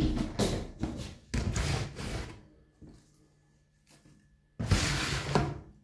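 Handling noises of hands at work with potting materials on a tabletop: rustling and light knocks in several short bursts, with a quiet gap of about two seconds in the middle and another burst near the end.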